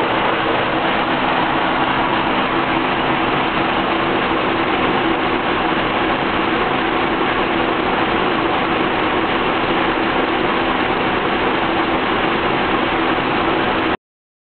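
Car engine idling steadily, the rough idle the owner is demonstrating while checking it with a vacuum gauge. It cuts off suddenly near the end.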